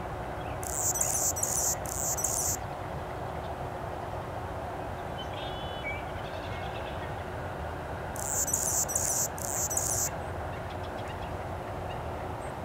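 Male Anna's hummingbird singing its high, scratchy, buzzy song from a perch, two phrases of about two seconds each, near the start and again about eight seconds in. A steady low background rumble runs underneath.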